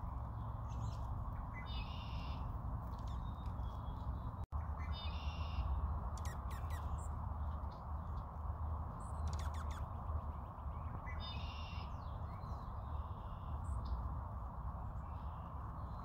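A small songbird calls three times, each a short nasal call of several stacked tones, with a few thin high chips in between, over a steady low rushing background.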